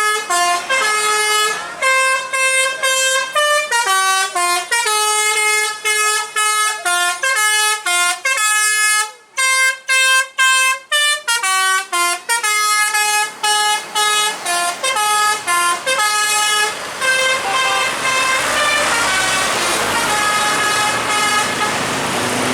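Bus telolet musical horn playing a quick, snake-charmer-style ('mengular') melody of short, pitch-jumping notes. Near the end the notes thin out and engine and road noise takes over.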